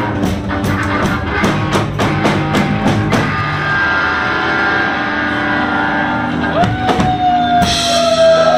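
Live rock band playing with drum kit, electric guitars and bass. About three seconds in the steady drumming stops and held notes ring on, with a long high note sliding slowly downward near the end.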